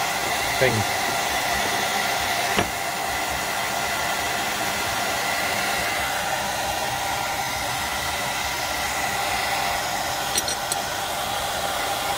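Hair dryer blowing steadily, a constant rushing noise with a faint steady whine.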